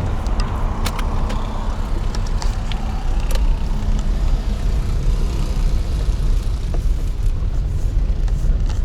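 Car driving: a steady low rumble of engine and road noise, with scattered light clicks.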